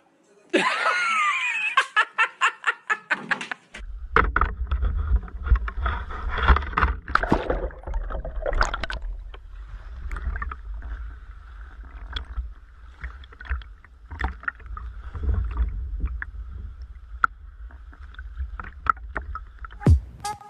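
A small boat moving along sea rocks, with a heavy steady low rumble and scattered knocks and splashes. Before that, for the first few seconds, a voice cries out over a rapid run of sharp clattering strokes.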